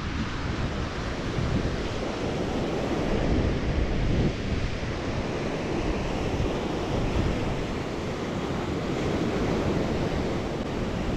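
Ocean surf breaking and washing up a sand beach, with wind buffeting the microphone in a low, uneven rumble.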